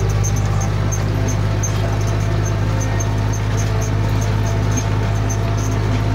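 Zetor 5211 tractor's three-cylinder diesel engine running steadily under load while pulling a plough through the soil, with a light high ticking about three times a second.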